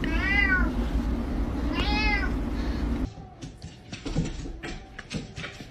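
A cat meowing twice, two drawn-out meows that rise and then fall in pitch, over a steady low hum. About three seconds in, the sound cuts to quieter scattered knocks and rustles.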